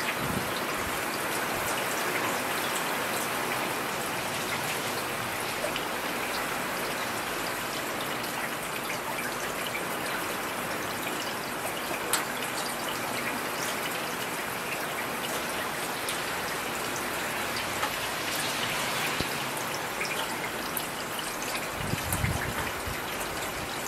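Steady rain falling, an even hiss with scattered sharper ticks of single drops. A brief low rumble rises under it near the end.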